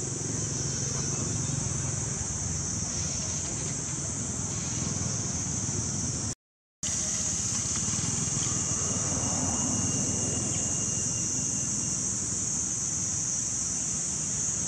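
Steady outdoor ambience: a continuous high drone of insects over a low rumble of road traffic. The sound cuts out completely for a moment a little past six seconds in.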